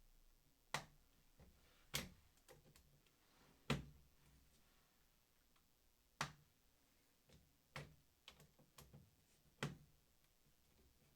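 A hand torque screwdriver clicking as it reaches its set torque on terminal screws. There are about eight sharp, irregularly spaced clicks, one to two seconds apart, with near silence between them.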